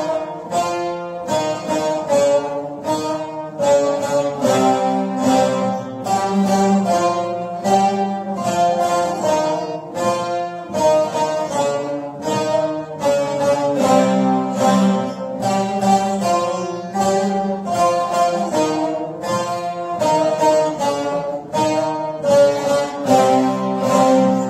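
Five bağlamas, Turkish long-necked lutes, playing a folk tune together as a quick, continuous run of plucked notes.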